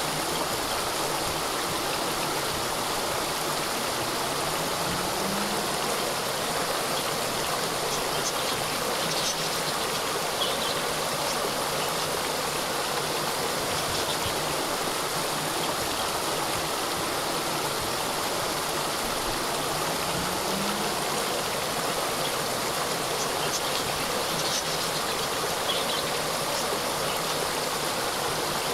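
A small waterfall splashing and rushing steadily, with a few faint high chirps now and then.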